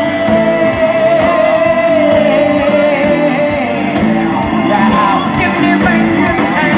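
Music with a singing voice, the singer holding one long note through the first half before the melody moves on.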